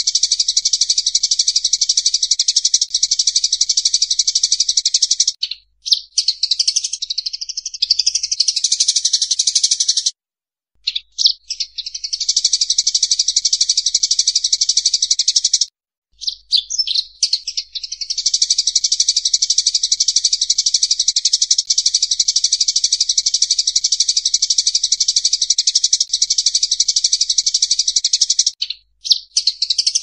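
Sparrows chattering in a fight: a loud, dense run of rapid high chirps, with short breaks about five, ten and sixteen seconds in and again near the end.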